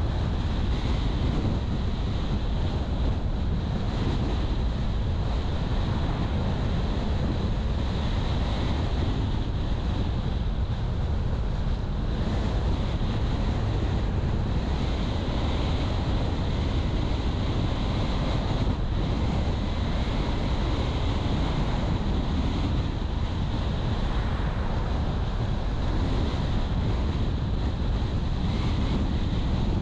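Steady driving noise of a car on the road: a low tyre-and-road rumble mixed with wind noise, unchanging throughout.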